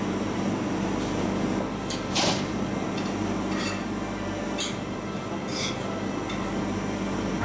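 A metal spoon clinking and scraping against a plate while eating katsu curry: a handful of short clinks spaced about a second apart, the loudest a little over two seconds in, over a steady low hum.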